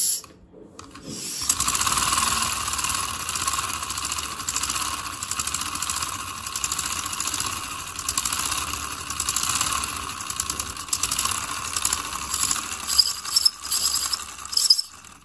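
Homemade V-twin steam engine running fast, its pistons, connecting rods and crank making a rapid, even mechanical clatter. A brief burst at the very start, then the engine gets going about a second and a half in, with a few louder knocks near the end.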